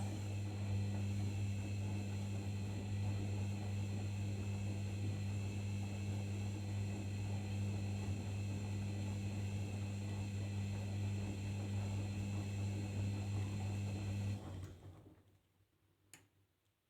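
Arçelik 5083 washing machine humming steadily, a pump or valve with a strong low electrical buzz over a rushing haze. It stops about 14.5 s in and dies away within a second, and a single click follows near the end.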